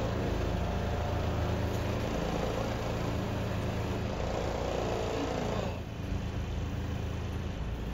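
Crane truck's engine running steadily to drive the loader crane's hydraulics: a low hum with a hiss over it, the hiss dropping away about six seconds in while the engine keeps running.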